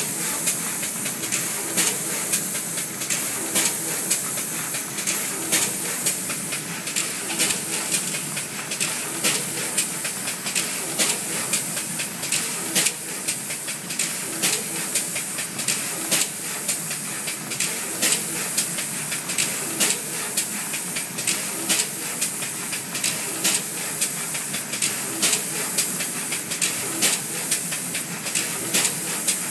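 HCT-400-L SMD pick-and-place machine running, a steady hiss with sharp, uneven clicks a few times a second as its head picks and places LEDs on a disk board.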